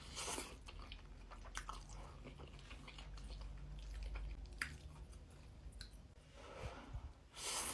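A person chewing a mouthful of food close to the microphone, with soft wet mouth clicks scattered throughout.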